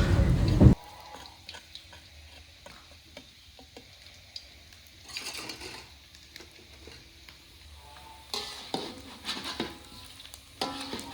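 Rice-field eels frying in oil in a wok: a faint sizzle, with stirring scrapes and clicks now and then and a few louder bursts of sizzling. A loud noise at the very start cuts off suddenly under a second in.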